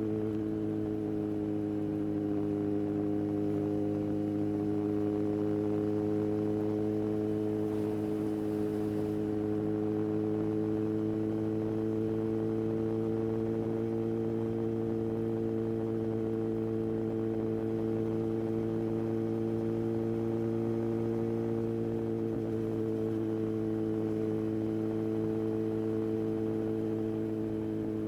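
Yamaha XJR1300's air-oil-cooled inline-four engine running steadily with a smooth, even hum; its pitch rises slightly in the middle and eases back down near the end.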